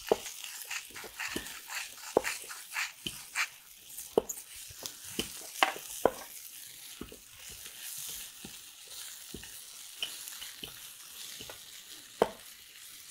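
Potato bhaji being stirred in a hot frying pan as it sizzles, with irregular sharp clicks and knocks of the utensil against the pan.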